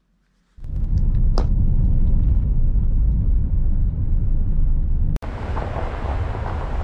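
A loud, low, steady rumble with a short high chirp about a second in, then, after a sudden cut about five seconds in, the steady rush of a fast mountain river.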